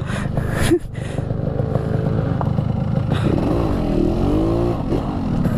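Yamaha RX-King two-stroke motorcycle engine running under way, with a short drop in level about a second in and its note dipping and rising again in pitch over the last couple of seconds.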